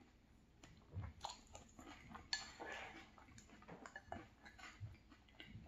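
Faint eating sounds: a spoon scraping and clicking against a glass bowl of cereal in milk, with quiet chewing between. One clearer ringing clink a little over two seconds in.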